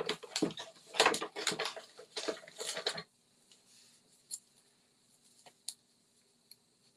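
Crackly rustling and clicking as a roll of glue dots on its paper backing strip is handled and unrolled, then it drops to a few faint ticks about three seconds in.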